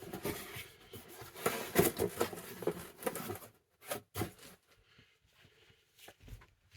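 Rustling and crinkling as cap packaging is handled, with a few sharp clicks about four seconds in, then only faint, sparse handling noise.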